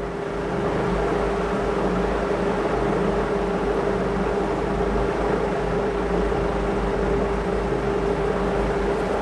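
Steady machine hum: a constant mid-pitched tone over an even rushing noise and a low rumble, unchanging throughout.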